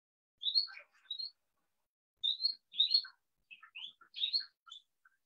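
Small birds chirping: a string of short, high chirps in loose clusters with brief silent gaps between them.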